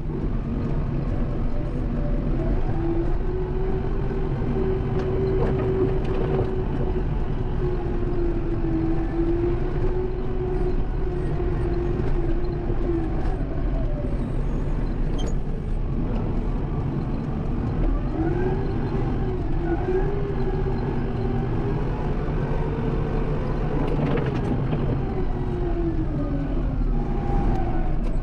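Kubota M7060 tractor's diesel engine running steadily, its pitch rising and falling several times as the engine speed changes.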